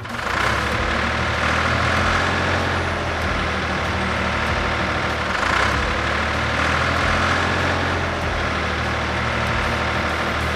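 Tractor engine running steadily at a low, even pitch.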